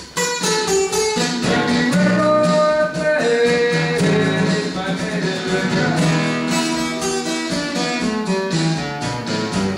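Acoustic guitar strummed and picked, playing the chords of a pop-rock song.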